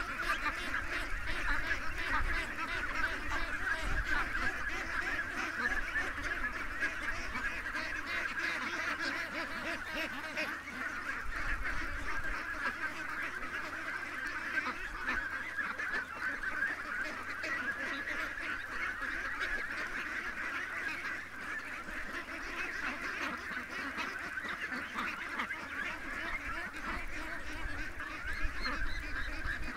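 A large flock of domestic ducks quacking and chattering together, many overlapping calls in a steady, continuous din.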